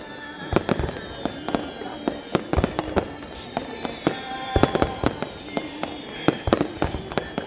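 Starmine fireworks barrage: a rapid, irregular string of sharp bangs from shells bursting, often several a second, with music playing behind.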